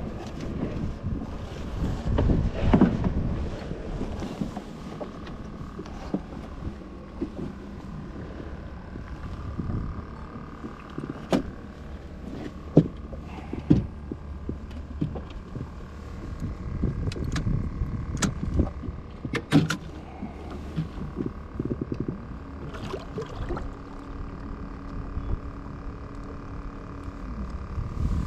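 Scattered sharp knocks and rattles in a small boat as a freshly landed black drum is handled on board, over a faint steady hum.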